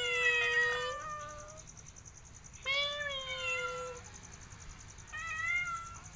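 Young white-and-tabby cat meowing three times: a long meow that fades out about a second in, a second one a little before the middle, and a fainter, shorter one near the end.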